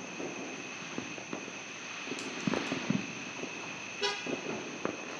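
Distant fireworks popping and crackling irregularly, with a short horn-like toot about four seconds in.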